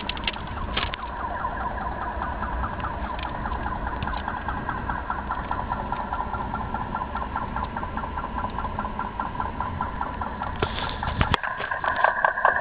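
Steel railway rail humming with vibration carried from passing trains: a steady ringing tone with rapid, even pulsing, growing stronger near the end. A low rumble underneath stops suddenly about eleven seconds in.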